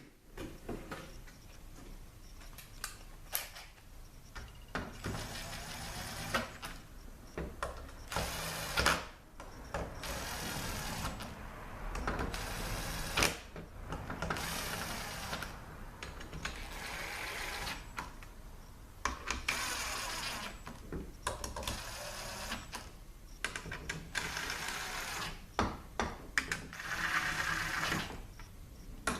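Small bolts being run down into a Ford 6R80 transmission valve body with a hand-held driving tool. The tool runs in repeated stretches of one to three seconds, with short knocks of tool and parts between them.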